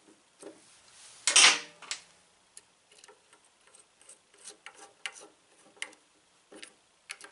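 A loud metal clank about a second in, as the ratchet wrench is set down on the concrete, then a run of light, irregular metallic clicks as a socket on an extension is turned by hand on a starter solenoid's terminal nuts.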